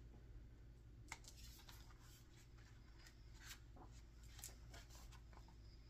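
Faint paper handling: book pages being turned and fingered, a few soft ticks and rustles over quiet room tone.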